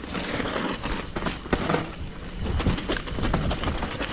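Mountain bike riding fast down a rough dirt trail: continuous tyre noise over dirt and leaf litter, with frequent sharp clatters and knocks from the bike over bumps and roots.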